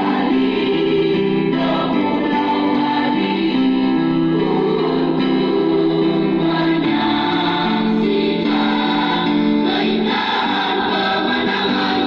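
Children's choir singing in several voice parts, holding long notes.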